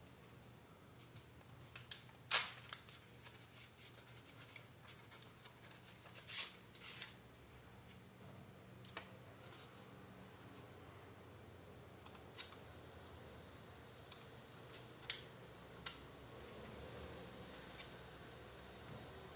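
Scattered sharp clicks and taps from handling an HP 15 laptop's plastic case and parts during a RAM upgrade, about six in all, the loudest about two seconds in.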